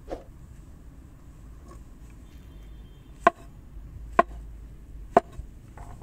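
Cleaver knife slicing through a white mushroom cap and striking a wooden cutting board: three sharp chops about a second apart, starting about three seconds in.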